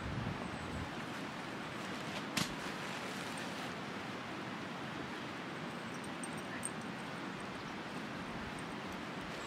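Steady rush of a nearby mountain river, with one sharp knock about two and a half seconds in.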